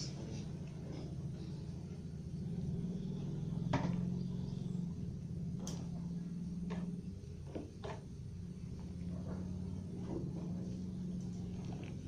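A spoon stirring a pot of cooking ginger and palm-sugar brew on the stove, knocking against the pot a handful of times, over a steady low hum.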